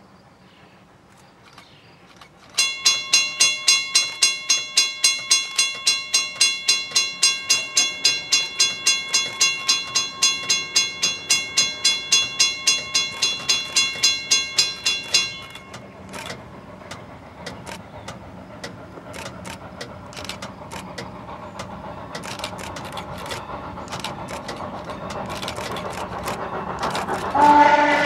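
Railroad grade-crossing bell ringing rapidly, about three to four strokes a second, starting abruptly and cutting off after some thirteen seconds. Then the sound of the approaching train slowly rises, with scattered sharp clicks. Near the end, the steam locomotive's 12-inch hooter whistle starts a loud, steady blast.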